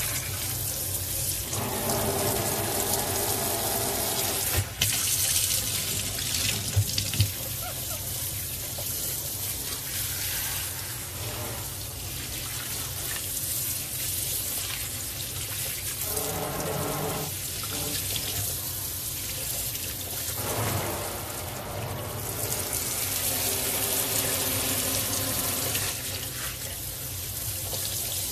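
Water running steadily from a pull-out sink sprayer, spraying over a small monkey's wet fur and into a bathroom sink. There are a few sharp clicks about five to seven seconds in and brief humming tones twice.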